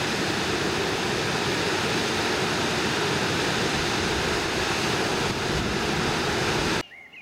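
Water rushing over a river weir: a steady, even rush of white water that cuts off suddenly near the end.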